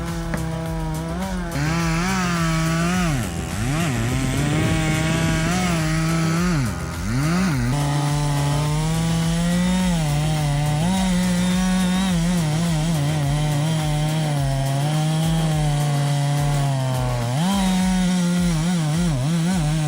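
Two-stroke chainsaw running at high revs, cutting wood. The throttle drops off and picks back up twice early on, then holds steady with small shifts in pitch under load.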